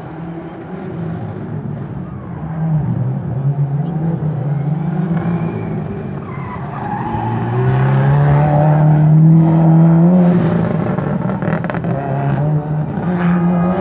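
Rally car engine revving hard, its pitch climbing and dropping several times as it accelerates and brakes through the stage, loudest about eight to ten seconds in. Tyres skid as it slides through a dusty corner near the end, with a few sharp cracks.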